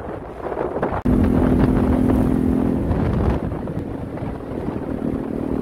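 Motorcycle engine running while riding, with wind buffeting the microphone. About a second in the sound cuts to a louder, steady engine hum.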